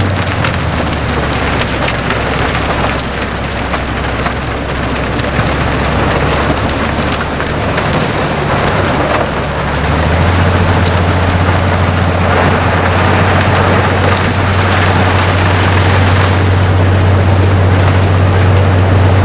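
Railway rotary snowplow cutting through hard-packed snow: a loud steady low drone from the machine and its spinning rotary wheel, over a constant hiss and patter of thrown snow and ice. The drone shifts higher about halfway through.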